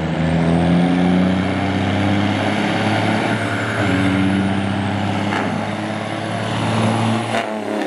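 Two big diesel dump trucks racing side by side down a drag strip, their engines running hard under full throttle, with the engine note changing pitch a few times as they shift gears and a faint high whistle above it. The sound cuts off abruptly near the end.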